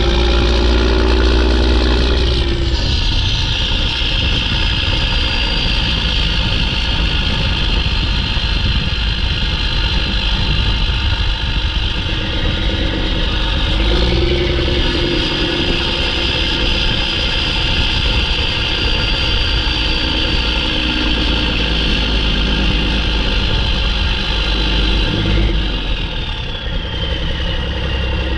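Mack E7 inline-six turbo diesel running, with a loud, high turbocharger whistle over the engine's low drone. The whistle falls in pitch about two seconds in, climbs again about halfway through, and drops away near the end as engine speed changes.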